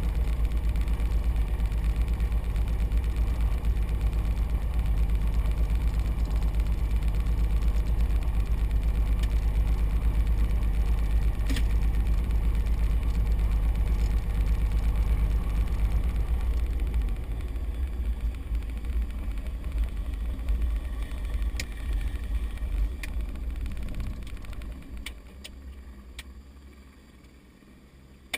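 Light aircraft's piston engine idling steadily, then shut down about two-thirds of the way in and dying away to quiet. A few light clicks follow.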